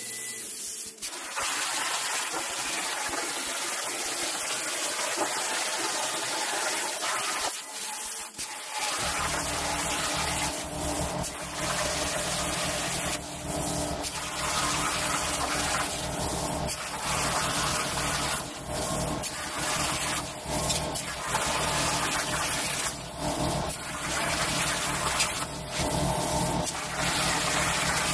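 CNC plasma torch cutting 14-gauge hot-rolled steel sheet: a loud steady hiss of the arc, breaking off briefly about a second in, about eight seconds in, and several more times as the torch moves between cuts. A low steady hum joins about nine seconds in.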